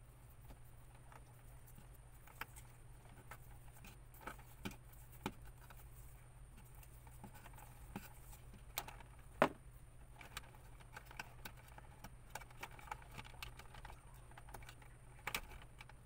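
Small scattered clicks and taps of pliers working a twisted copper wire splice and handling wires in a plastic electrical junction box; the sharpest click comes about nine seconds in, over a faint steady low hum.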